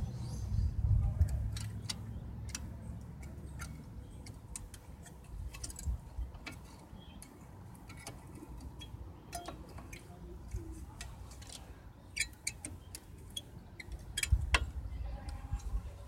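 Scattered metallic clicks and taps of a brake pad being refitted into the caliper bracket, with a low rumble in the first few seconds.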